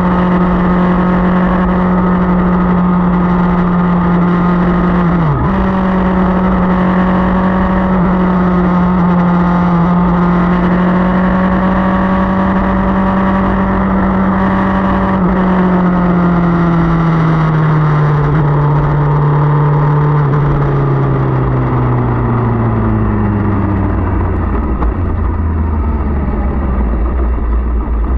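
Motorcycle engine running at a steady cruise, with a brief sharp dip in pitch about five seconds in, as at a quick gear change. Over the last ten seconds the engine note falls steadily as the bike slows down, over a low rumble of wind and road noise.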